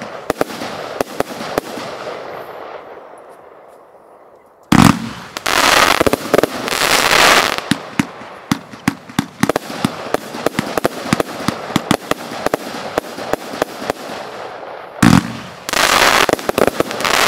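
Lesli Fireworks Signature Show double compound firework cake firing. Dense crackling dies away over the first few seconds. About five seconds in a loud bang sets off a new run of long hissing bursts and rapid sharp cracks, and a second loud bang near the end starts another long hissing burst.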